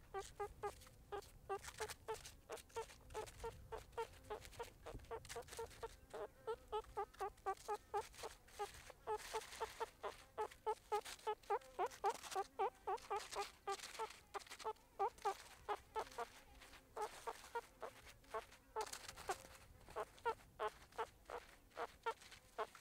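Meerkats calling: a long run of short, repeated calls, several a second, louder in the middle.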